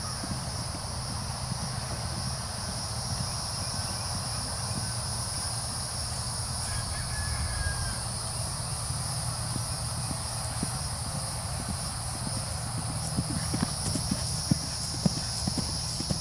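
Hoofbeats of a grey Thoroughbred-cross horse cantering on grass under a rider: soft, dull thuds that become sharper and more distinct in the last few seconds, over a steady high-pitched hiss.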